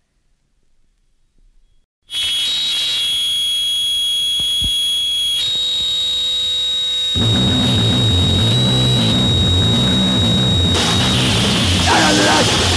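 About two seconds of near silence between songs, then a lo-fi hardcore noise-punk track starts with a high, steady whine of guitar feedback over distorted hiss. Heavy distorted bass and drums come in about seven seconds in, and shouted vocals start near the end.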